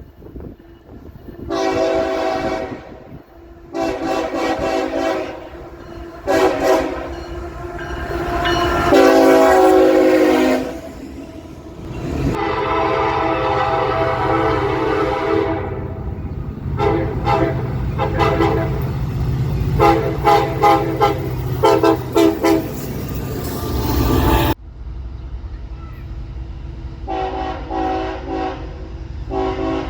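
Train air horn sounding a multi-note chord in a series of long and short blasts over the low rumble of the train. Near the end the sound cuts abruptly to another horn sounding shorter blasts.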